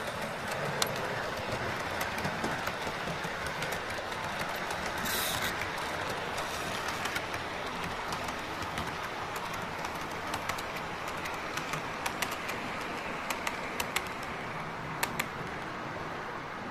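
A model train running along the layout track: a steady rushing hiss with scattered light clicks of the wheels over the rail joints.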